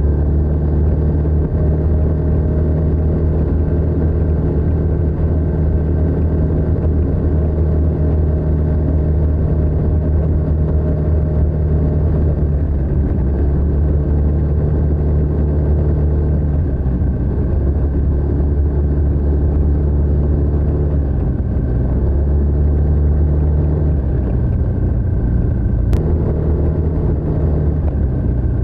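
TVS NTorq 125 scooter's single-cylinder four-stroke engine running through its stock exhaust while riding, the engine note dropping and picking up again a few times as the throttle is eased and reopened. A single sharp click near the end.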